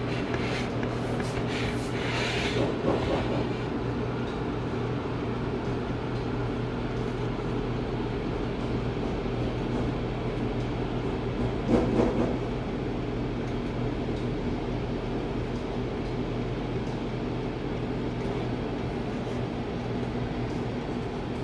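Convection oven's fan motor running with a steady hum during baking. A brief clatter sounds about two seconds in and again about twelve seconds in.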